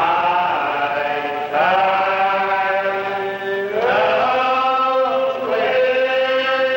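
Slow unaccompanied hymn singing: long held notes that slide up into each new note.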